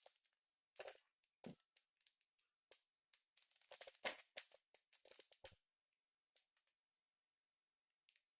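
Rubik's cube being twisted: faint quick clicks and clacks of its layers turning, a rapid flurry a few seconds in, then the turning stops.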